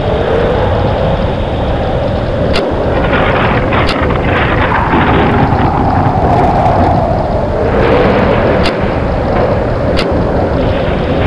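Thunderstorm sound: strong wind howling, its pitch slowly rising and falling, with rain and a continuous low rumble underneath. Sharp cracks come in two pairs, one a quarter of the way in and one near the end.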